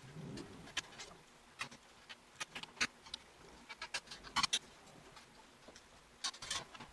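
Scattered small clicks and metallic taps of a screwdriver and screws as a motherboard is screwed down into a computer case.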